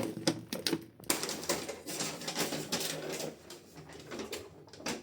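Takeaway food packaging being handled: irregular crinkling of paper and light clicks and taps of cardboard, busier in the first half and thinning out toward the end.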